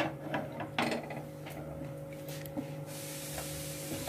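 Mustard oil being poured from a bottle into a wok, with a few soft knocks and rubs from handling the bottle and pan. A steady hiss starts about three seconds in, over a low steady hum.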